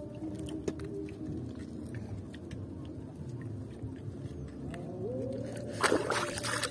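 A boat engine droning steadily, its pitch rising briefly about five seconds in. Near the end comes a splash of seawater as a hand is dipped and swished in the sea.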